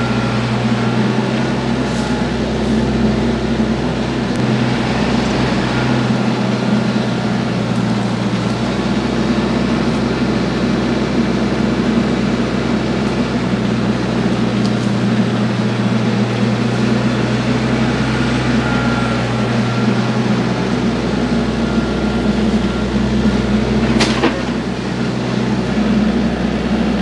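TYM tractor's diesel engine running steadily at a constant speed, with one sharp snap near the end.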